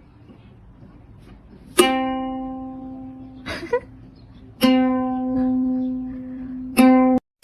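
A plucked string instrument like a ukulele, one note at the same pitch sounded three times, each note ringing out and fading; the last is cut off short.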